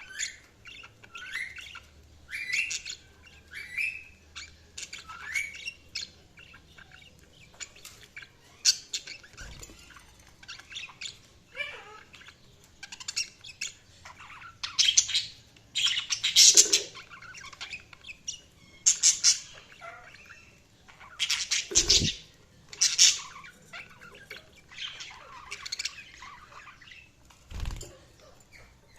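Budgerigars chirping and squawking in a run of short, sharp calls, some rising in pitch, getting louder and busier in the middle. A few dull knocks sound among the calls.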